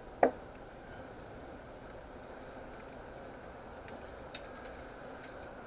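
Metal beekeeping tools, a hive tool and a frame grip, clicking and clinking against the hive's wooden frames, with one louder click about four seconds in. Under it runs a steady hum from the open honeybee colony, and there is a brief falling sound just after the start.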